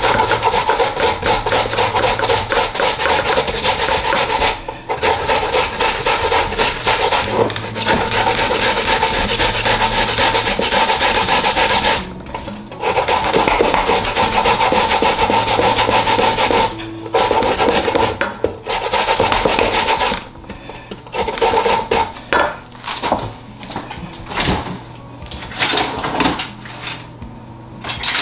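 Raw sweet potato being grated on a metal hand grater over a stainless steel bowl: fast, continuous rasping strokes broken by a few short pauses, thinning to scattered strokes about twenty seconds in.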